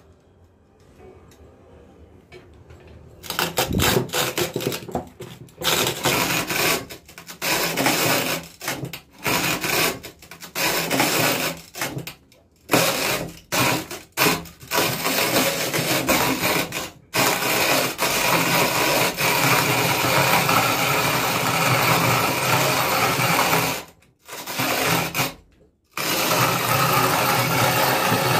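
Dry mixer grinder grinding glass marbles, starting about three seconds in: first switched on in a string of short bursts, then run for longer stretches with two brief stops near the end, the motor noise mixed with the grinding of the glass in the jar.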